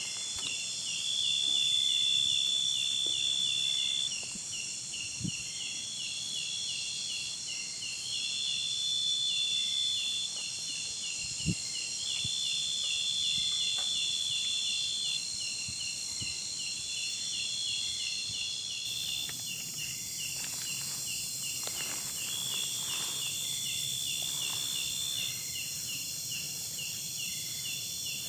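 Chorus of insects such as crickets: a fast, regular chirping goes on throughout, overlaid by a higher trill lasting a few seconds that repeats every few seconds, over a steady high hiss of more insects. Two faint soft knocks come in the first half.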